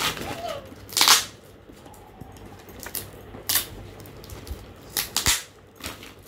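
Gift-wrapping paper rustling and crinkling as it is handled and pulled off a box, in several short bursts, the loudest about a second in.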